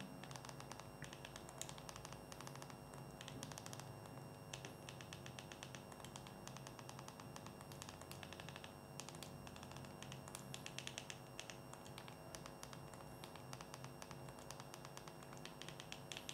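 Faint runs of quick clicks from remote-control buttons being pressed to move across an on-screen keyboard and enter text, over a low steady hum.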